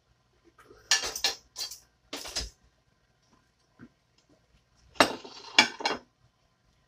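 Ceramic plates and cutlery clinking and scraping as dishes are handled and set down. The clatter comes in two bunches of sharp knocks, the first about a second in and the second about five seconds in.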